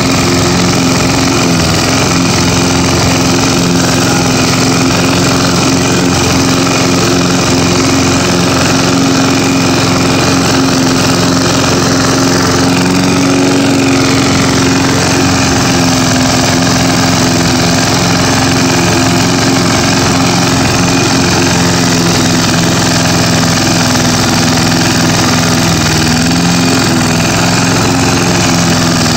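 1981 Roper 22-inch push mower's single-cylinder Briggs & Stratton vertical-pull engine running steadily while the mower is pushed across the lawn cutting grass.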